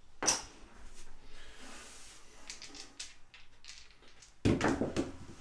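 Casino chips clicking faintly as bets are set on the felt, then about four and a half seconds in a pair of dice thrown down a craps table, a quick cluster of knocks as they tumble and strike the rail.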